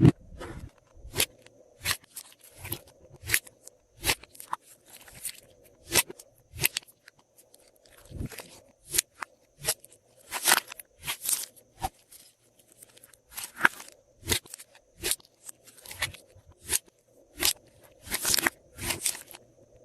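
Glossy slime being worked by hand: irregular sticky pops and crackles, several a second, some in quick clusters.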